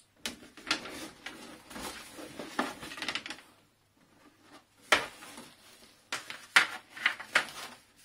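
Cardboard rustling and hard knocks of ribbed black plastic grille panels being lifted and shifted among cardboard boxes. There is a sharp knock about five seconds in and a quick string of knocks near the end.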